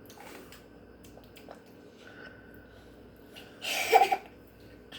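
Mostly quiet with a few faint small clicks, then about three and a half seconds in, a toddler gives one short, loud, breathy vocal outburst lasting about half a second.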